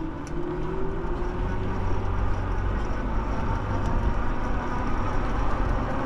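Ride1Up Cafe Cruiser e-bike under way: a steady low rumble of wind and road noise, with a faint whine rising slightly in pitch over the first few seconds.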